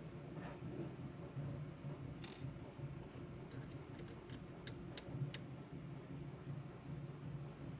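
Light metallic clicks and a short scrape from a small hex key working the screws that hold a 3D printer's extruder to its toolhead: one scrape about two seconds in, then a run of separate clicks a second or two later, over a faint steady hum.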